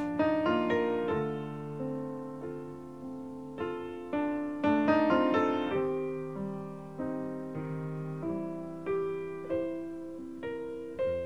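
Background music: solo piano playing a slow, gentle melody, each note struck and left to fade.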